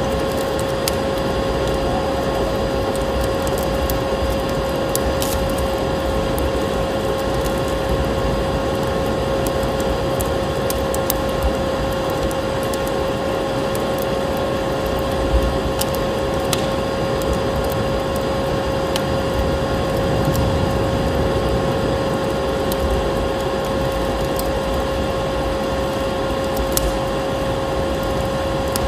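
Vacuum cleaner motor running with a steady drone and a constant whine, mixed with the irregular crackle and pop of a wood fire burning in a fireplace.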